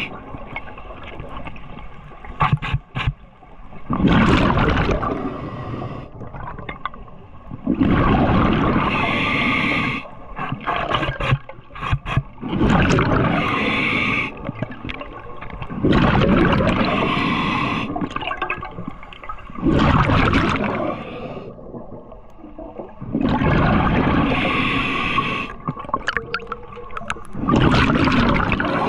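Underwater breathing through a scuba regulator: a rush of exhaled bubbles about every four seconds, seven times over, with quieter water noise in between.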